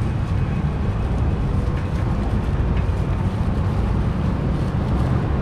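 Steady low rumble of background noise, with a few faint rustles of a plastic bag being tied over the grinder's outlet.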